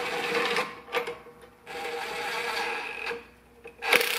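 Cordless DeWalt driver running in three short runs with brief pauses between, spinning down the clamp-band nuts on a truck's spring-brake (park brake) chamber to bring them up evenly.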